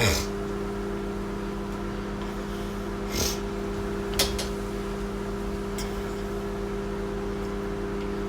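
Microwave oven running with a steady electrical hum. There is a thud at the start, a short rustle about three seconds in and a sharp click a second later.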